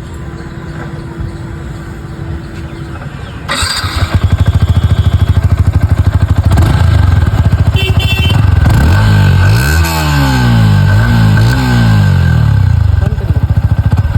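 Stock exhaust of a Yamaha R15 V4's 155 cc single-cylinder engine. The engine comes up loud about three and a half seconds in and runs at idle, then is revved several times, its pitch rising and falling with each blip.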